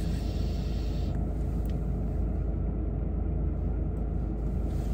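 Long draw on an Evolv Reflex pod vape: a soft airy hiss of air pulled through the pod that stops about a second in. Under it is the steady low rumble of the idling car.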